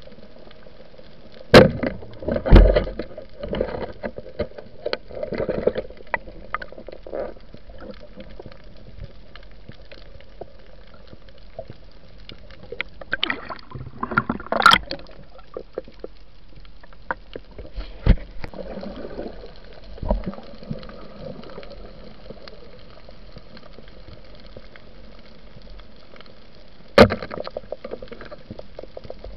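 Underwater sound from a diver's camera: a steady water hiss with scattered clicks and several sharp, loud knocks, near the start and again near the end. About 13 to 15 seconds in there is a burst of splashing and gurgling as the camera and a speared fish break the surface.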